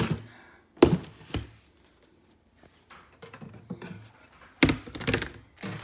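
Kitchen handling sounds: a sharp knock about a second in and a lighter one just after, then a few clicks and knocks. Near the end the crinkling of a plastic bread bag begins.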